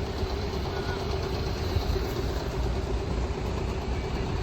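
Steady rumble of a vehicle running close by, with a held low hum through it.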